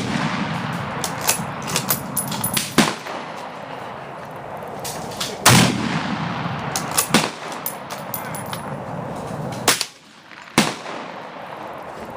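Rifle shots at an outdoor range: about three loud shots, each trailing off in a long low rumble, the last two less than a second apart. Fainter sharp cracks of other gunfire come between them.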